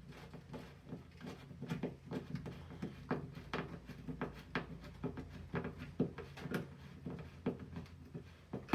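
A mounting screw being turned in by hand to fix a mechanical doorbell chime to the wall: a series of short grating clicks, about two a second.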